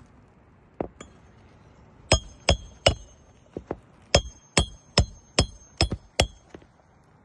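Hand hammer driving roofing nails to refasten an asphalt shingle: about a dozen sharp, ringing blows, mostly in quick runs of two or three a second.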